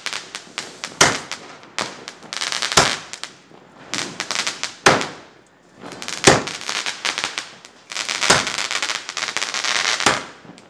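A 25-shot crackling firework cake firing: six loud bangs, one every second and a half to two seconds, with a dense crackle of bursting stars after each.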